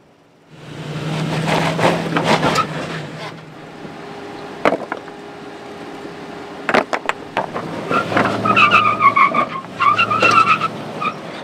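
Lexus GX470's 4.7-litre V8 revving while its tyres scrub and spin on slickrock as it struggles up a ledge without lockers. In the middle come a few sharp clacks of rocks being set down. Near the end the tyres squeal against the rock in short, broken squeals.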